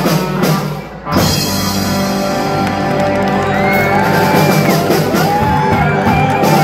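Live rock band ending a song: drums and guitars play up to a brief break about a second in, then a final chord rings out. The crowd starts to whoop over the ringing chord.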